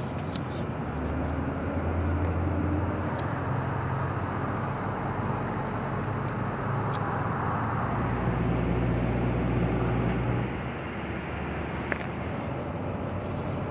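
Steady low hum of vehicle engines running over a constant rushing noise. The hum changes pitch about eight seconds in and drops a little in level shortly after ten seconds.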